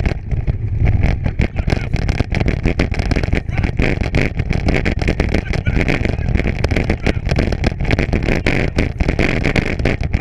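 Bicycle on the move along a trail, with a continuous rumble and dense irregular rattling, and wind buffeting the microphone.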